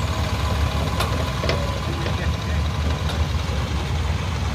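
Sonalika DI 50 tractor's diesel engine running steadily at low revs as it pulls away with its tipping trailer after unloading soil.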